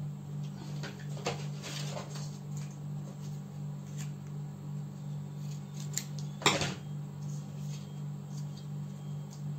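Sheets of paper handled and pressed down on a tabletop: light rustles and small taps, with one sharper knock about two-thirds of the way through, over a steady low hum.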